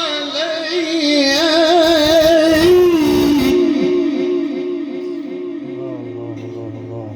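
A male Quran reciter's voice holding a long, ornamented melodic note: the pitch wavers and turns within the melody, then the note fades toward the end.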